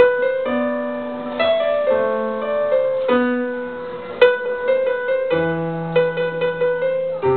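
Electronic keyboard played live with a piano sound: a melody of single notes over lower bass notes. About four seconds in, the notes come faster, with quick repeated strikes.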